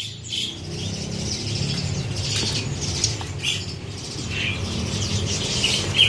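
Small caged songbirds chirping in short, high calls again and again, over a steady low hum.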